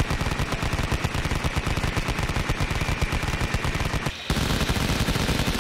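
Toy soft-bullet blaster making a rapid machine-gun rattle, many shots a second, with a brief break about four seconds in before it starts again.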